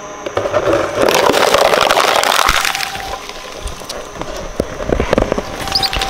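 Twin-shaft shredder chewing through a boxed toy and an inflated plastic swim ring: a dense crunching crackle about a second in, then scattered sharp cracks and snaps, with a few short squeaks near the end.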